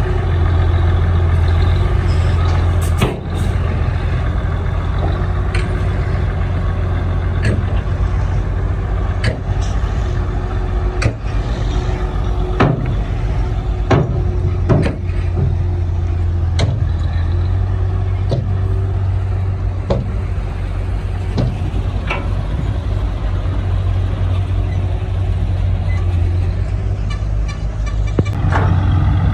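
Heavy diesel construction machinery running steadily, with sharp clanks or knocks every one to two seconds.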